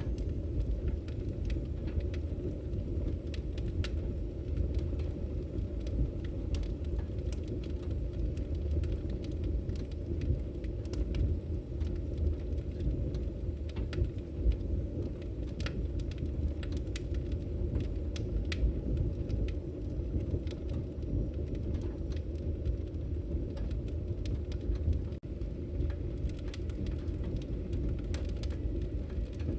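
Fire burning in a fireplace: a steady low rumble of flames with many scattered sharp crackles and pops.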